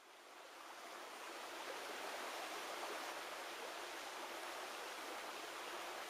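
Steady rush of the Kiyotaki River flowing through its gorge, fading in over the first second or two.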